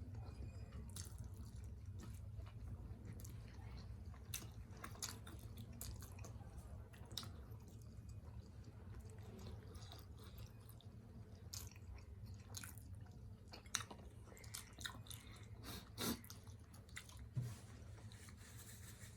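A person chewing steamed chicken momos, with soft wet mouth clicks and smacks scattered throughout and a few louder ones in the last third.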